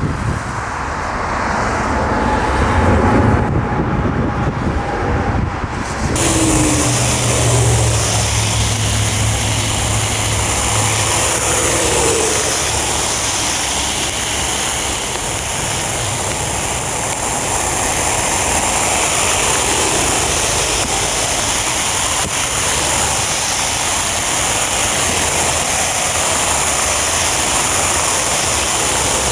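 Jet airliner engines rumbling as a Boeing 787 climbs out. About six seconds in, a cut switches to a steady rushing noise of storm wind and rain, with the engines of an Airbus A380 on approach and landing under it.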